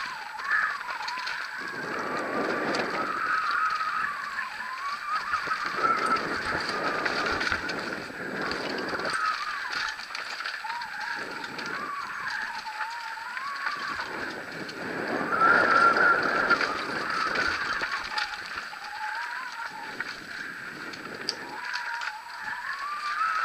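Mountain bike freehub ratchet buzzing as the bike coasts downhill, its pitch rising and falling with speed. Under it are surges of tyre noise on dirt and gravel, mixed with wind on the camera.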